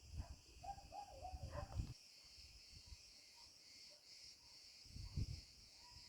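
Cicada cretensis singing as a faint, steady, high-pitched buzzing chorus. Low thumps and rumbles come through the first two seconds, and once more about five seconds in.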